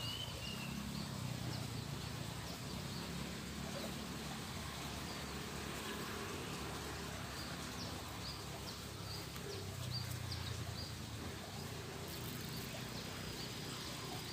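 Open-field ambience: a short whistled bird call at the start, then scattered quick, high chirps from birds or insects over a low steady rumble.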